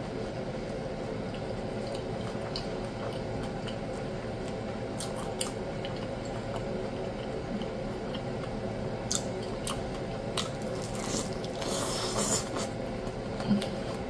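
Close-miked chewing of a pan-fried birria taco: wet squishing with scattered crunches of the crispy tortilla, and a cluster of louder crunches near the end, over a faint steady hum.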